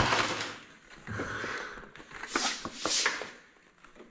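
Cardboard pizza box lid being pulled, folded and handled. A sharp crack at the start is followed by a few bursts of rustling and scraping.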